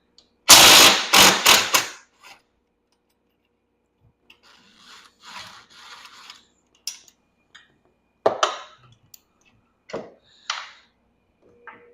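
Power tool loosening a bolt on the golf cart's rear seat frame, run in several short bursts early on. Quieter scraping and a few separate knocks follow as parts are handled.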